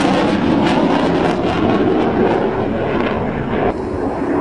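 Jet aircraft flying past low: a loud, steady rush of jet noise, whose hiss thins out suddenly near the end.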